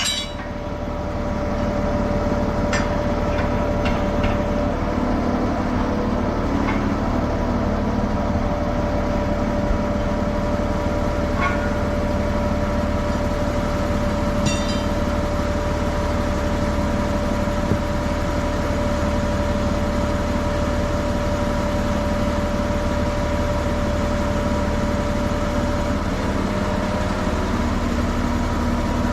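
Tire service truck's engine and hydraulic system running steadily, driving the tire manipulator, with a steady whine over the engine rumble that cuts off near the end. A few faint clicks and knocks come through.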